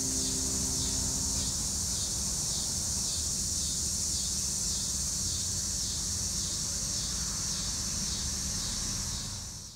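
Insects chirring steadily in a high, hissing band with a faint regular pulse, over a low rumble. A few held music notes fade out in the first second and a half.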